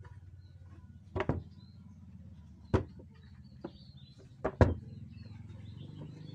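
Wooden knocks and clacks as the hinged panels of a small folding teak table are swung open and shut and set down on a bench: a double knock about a second in, a sharp one near three seconds, and two loud ones in quick succession around four and a half seconds, the last the loudest. A steady low hum runs underneath, with faint bird chirps.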